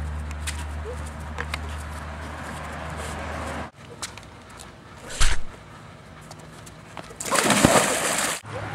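A body plunges into a backyard swimming pool near the end, a loud splash and rush of water lasting about a second. A sharp knock comes a couple of seconds before it.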